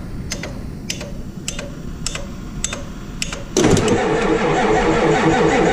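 Starter relay clicking several times, then about three and a half seconds in the starter motor suddenly engages and cranks the 1987 6.9 L IDI V8 diesel in a steady, pulsing rhythm without it firing. The freshly replaced lift pump is still pushing air through the fuel system.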